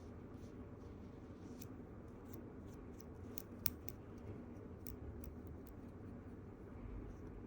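Faint, irregular crackling clicks and scrapes of an ear pick working inside an ear canal, heard close up, with one sharper click about three and a half seconds in, over a low steady hum.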